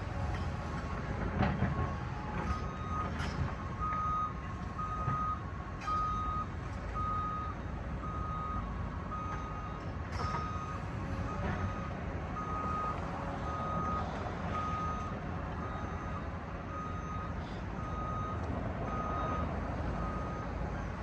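Back-up alarm on heavy demolition equipment beeping about once a second over a low engine rumble, with a few knocks.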